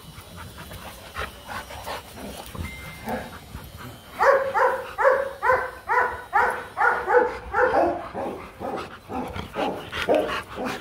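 A dog barking repeatedly in a steady run of about two barks a second, starting about four seconds in.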